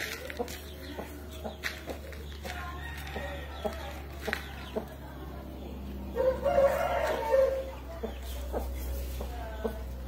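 Aseel rooster crowing once, about six seconds in, a call lasting about a second and a half, with short clucks and taps scattered before and after.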